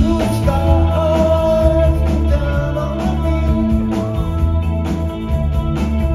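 A live rock band playing: electric guitars, bass and drums, with a sung vocal line gliding over them, heard from the audience floor of a club.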